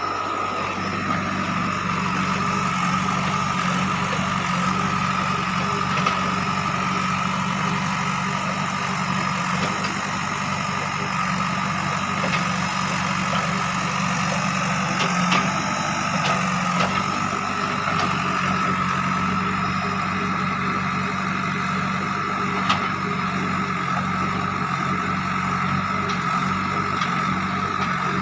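JCB 3DX backhoe loader's diesel engine running steadily, with a steady high whine over the engine note and a few brief knocks.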